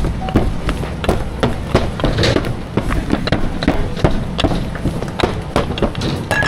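Rapid, irregular sharp knocks and clacks of hard objects striking, several a second, over a steady low rumble.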